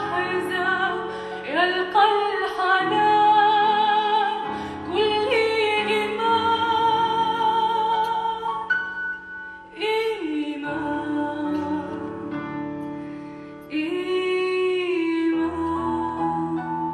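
A woman singing a slow Arabic ballad into a handheld microphone over a piano accompaniment. She sings long phrases with wavering vibrato on the held notes and breaks briefly twice while the piano carries on.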